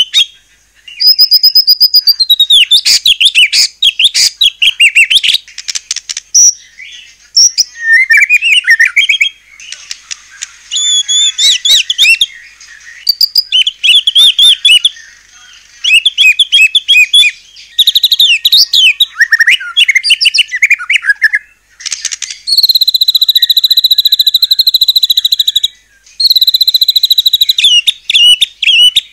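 White-rumped shama (murai batu) singing loudly in varied phrases of clear whistles and rapid chattering notes. Two long, even held notes come in the last third.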